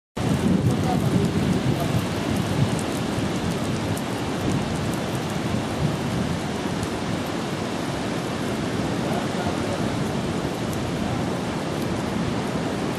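Beach ambience: a steady rushing noise of sea surf with a low rumble, beginning abruptly.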